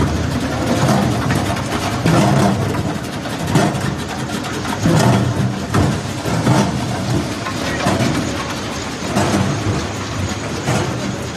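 Potato-processing machinery running loud and steady: a potato strip-cutting machine, then a washing machine spraying water over the cut fries near the end.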